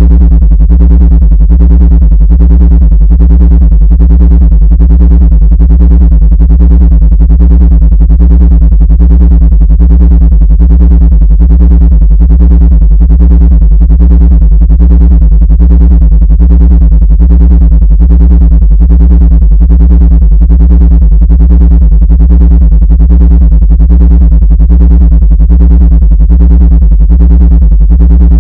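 Loud, steady, low-pitched synthesized buzzing tone with many overtones and a rapid, even pulsing, played as a supposed ant-repelling frequency.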